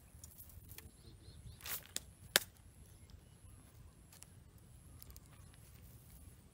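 A cast net being gathered and handled by hand: a short rustle, then one sharp click, over a low steady rumble.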